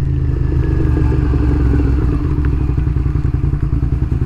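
2006 Suzuki SV650's V-twin engine running steadily, with a fast pulsing beat.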